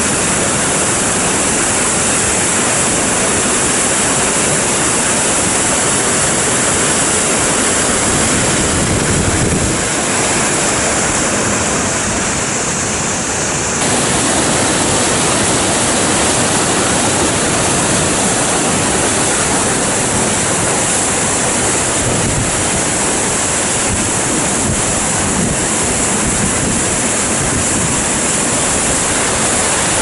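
Waterfall pouring over a rock ledge into a churning pool in a narrow gorge: a loud, steady rush of falling water.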